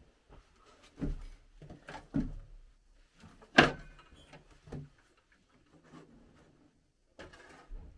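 Scattered knocks and clunks of a wooden plank and hand tools being handled on a work platform, the loudest about three and a half seconds in.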